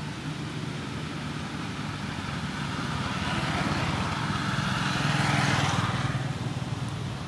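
A motor vehicle passes on the road: a low engine hum and tyre noise grow louder over a few seconds, peak about five seconds in, then fall away.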